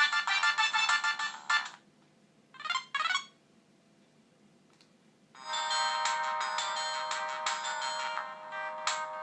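Siemens MC60 mobile phone playing ringtone melodies from its loudspeaker. A fast run of notes stops about a second and a half in, a short two-note tone sounds near the middle, and a new ringtone with held tones starts about five and a half seconds in.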